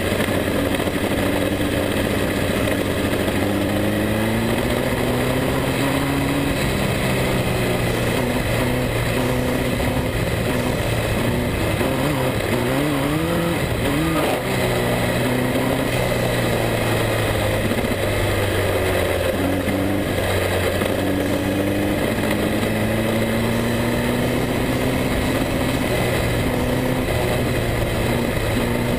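Speedway midget car's engine running hard, heard on board, its pitch falling and rising over and over through the lap, with a wavering stretch about halfway through.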